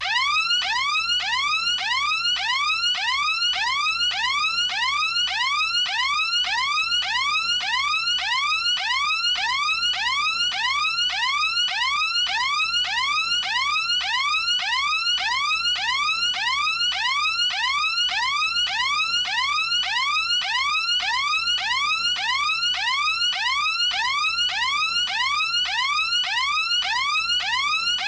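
Intercom klaxon alarm: a pitched electronic whoop that sweeps upward, repeating evenly about twice a second without a break.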